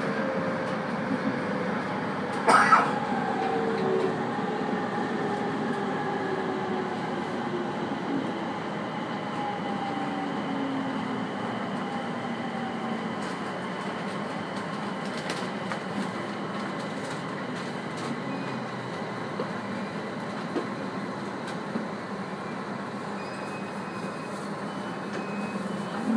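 IGR 7000-series (ex-JR 701-series) electric train heard from inside the car as it slows into a station. The motor whine falls steadily in pitch over the running and wheel noise, with one sharp knock about two seconds in.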